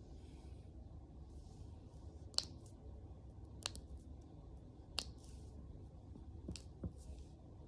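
Knuckles cracking: about five sharp pops a second or so apart, the loudest about two and a half seconds in, with soft rustling between them.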